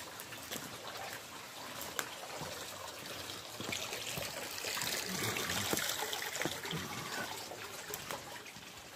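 A small stream trickling over stones, louder about halfway through, with scattered crunching steps on dry cane litter.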